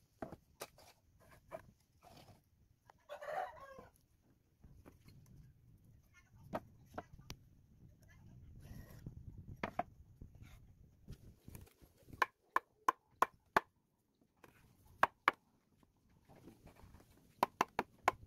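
Sharp wooden knocks and taps as palm-wood boards and frame parts are handled and fitted together, including a quick run of about five knocks. A chicken clucks in between.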